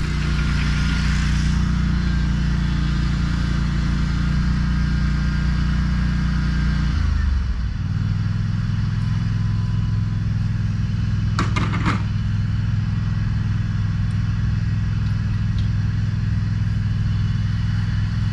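Engine of an Exmark Staris 48-inch stand-on mower running steadily under load while pushing a leaf plow. The engine note shifts about seven seconds in, and a brief rattle sounds about twelve seconds in.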